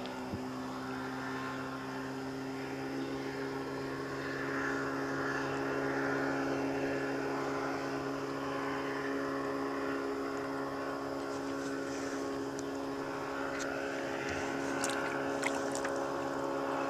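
Steady drone of a motorboat engine, a low hum with several even overtones, growing slightly louder about four seconds in. A few faint clicks near the end.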